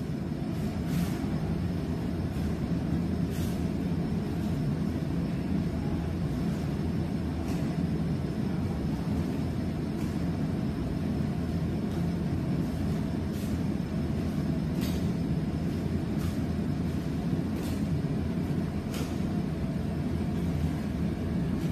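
Steady low background rumble, with faint sharp snaps or taps scattered irregularly, about eight in all, as a child moves through a taekwondo form on foam mats.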